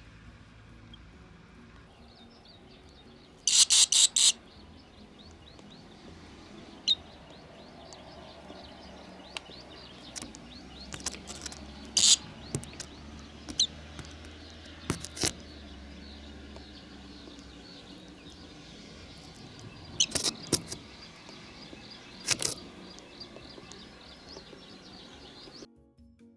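Barn swallows chirping at the nest: short, sharp calls in scattered bursts, a quick run of four a few seconds in and single ones after, over a steady low rumble of wind. The sound cuts off abruptly near the end.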